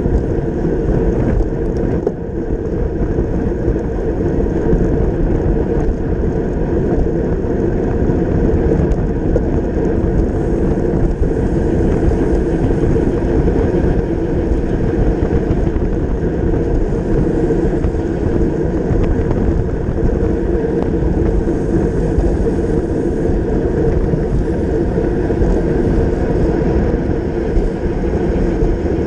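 Steady wind rush over a handlebar-mounted camera's microphone, with the tyre and road noise of a racing bicycle moving at speed.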